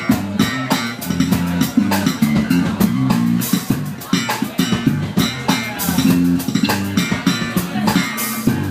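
Live blues band playing, with the electric bass guitar's walking notes out in front over drums and cymbals.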